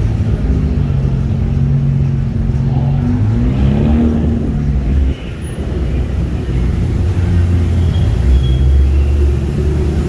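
Car engines running low and steady as cars roll past at low speed, with one engine briefly revving up and back down about four seconds in.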